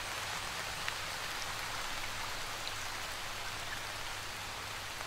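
Steady even hiss with a faint low hum underneath and a few scattered faint ticks; no speech.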